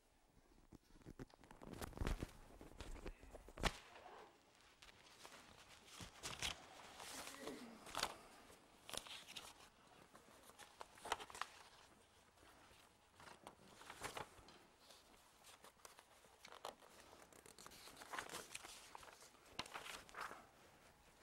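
Faint rustling and handling noise with scattered clicks and knocks, such as papers being shuffled; a low thump about two seconds in and a sharper knock near four seconds are the loudest.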